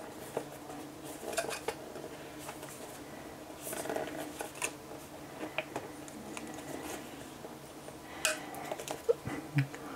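Scattered light clicks, taps and rustles from handling the boxed Apple MagSafe Battery Pack, turning the packaging over in the hands.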